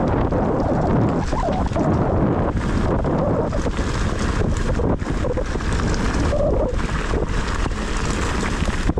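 Wind rushing and buffeting over the camera microphone as a mountain bike rides downhill, with rattles and knocks from the bike on rough, wet trail.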